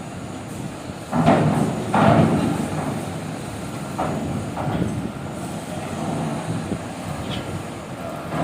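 Lifting machinery running with loud metallic clatter, two heavy clanks about one and two seconds in and two lighter ones around four seconds in.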